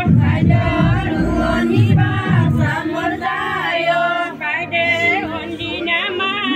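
A group of voices singing together, a wavering melody with no pauses.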